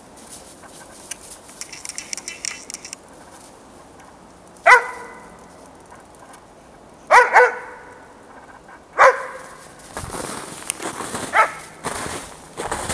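Young Dobermann barking: a single bark about five seconds in, a quick double bark, another single bark, then a fainter one near the end.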